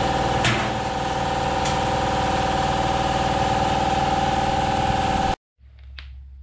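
Loud, steady drone of a motor-driven machine running in the workshop, with a strong held whine and a light knock or two. It cuts off abruptly about five seconds in, leaving a much quieter room with a few small clicks.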